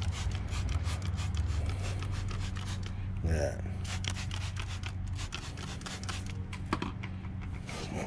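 Hand trigger spray bottle spritzing cleaner onto a wheel: many short sprays, one after another.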